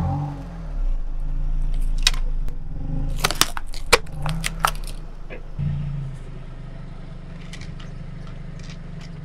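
A car tyre rolling slowly over a plastic toy and crushing it, with a string of sharp cracks and crackles from the plastic about two to five seconds in, over the car's steady low engine hum. The hum carries on alone, more quietly, near the end.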